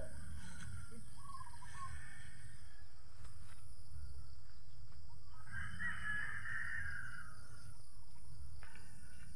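Chickens calling in the background, with short calls early on and one longer call of about a second and a half a little past the middle, over a steady low rumble.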